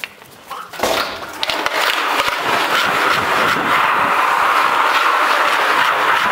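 Skateboard wheels rolling on a smooth floor: a knock about a second in, then a steady rolling noise that builds and holds.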